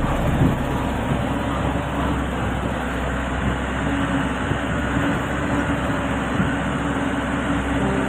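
Motorcycle engine running steadily under a constant rush of noise as the bike rolls slowly along.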